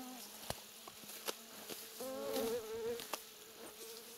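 A small flying insect buzzing, its hum wavering in pitch, fading early on and coming back louder about two seconds in. A few sharp clicks are scattered through it.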